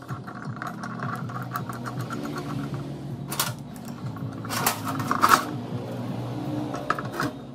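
Small steel wrench clicking against a nut and bolt as an angle grinder's head is fastened to a steel bracket, followed by several sharp metal clanks as the steel parts are handled and set on a steel plate. A steady low hum runs underneath.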